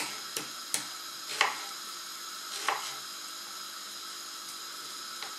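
Kitchen knife cutting cucumber into chunks on a wooden cutting board: several sharp knocks of the blade meeting the board, mostly in the first three seconds, over a steady hiss.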